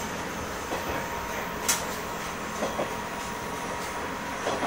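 KiHa 100 diesel railcar running, heard from the cab: steady running noise with sharp wheel clicks over rail joints, the loudest a little before halfway and close pairs later on.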